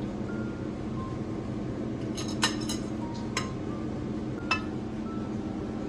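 Metal utensil clinking against a glass mixing bowl as marinated chicken pieces are moved into the flour: a quick run of three sharp, ringing clinks about two seconds in, then single clinks at about three and a half and four and a half seconds, over a steady low hum.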